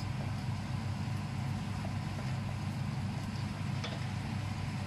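Steady low rumble from the cooker while noodles and vegetables are stir-fried in a stainless steel wok. A faint tap of the spatula on the wok comes a little before the end.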